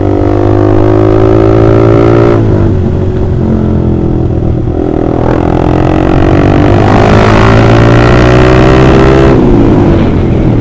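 Honda CBR150R's single-cylinder four-stroke engine through a loud aftermarket Austin Racing exhaust, heard while riding. It pulls up through the revs and drops back a few times, the pattern of shifting up through the gears.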